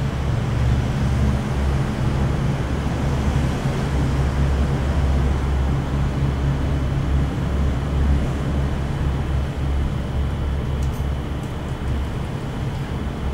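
Steady low rumble of outdoor background noise with a hiss above it; a few faint ticks near the end.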